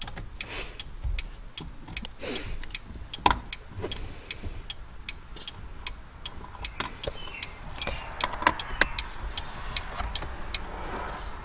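Steady mechanical ticking inside a car, about two or three ticks a second, with a louder click about three seconds in and a few knocks near the nine-second mark.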